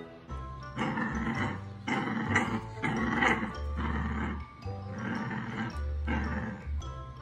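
A puppy growling in about six rough bursts, each under a second long, over background music.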